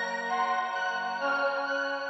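Instrumental background music of held, overlapping notes, with the chord changing a little past halfway.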